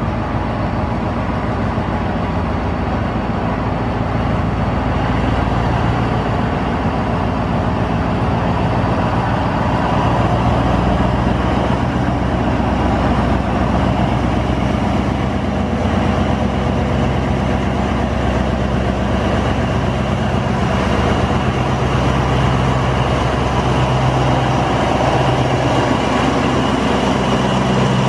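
Alsthom diesel-electric locomotive's diesel engine running as the locomotive pulls slowly closer, its steady engine note growing a little louder about ten seconds in and staying strong as it comes alongside.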